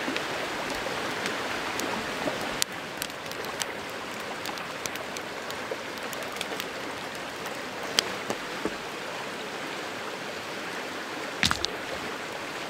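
Creek water running steadily, with a small wood campfire crackling in scattered sharp pops. A louder knock near the end as stones in the fire are handled.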